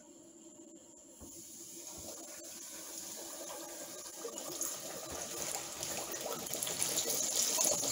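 Coated pickerel fillets deep-frying in a pot of hot oil: a sizzle that starts about a second in and grows steadily louder as the pieces go in.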